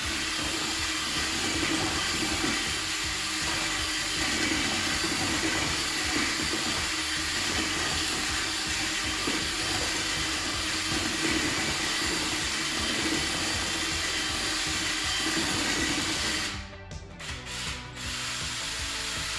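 Cordless drill spinning a paddle mixer in a bucket of wall paint, the motor running steadily with the paint churning, then stopping suddenly about three-quarters of the way through.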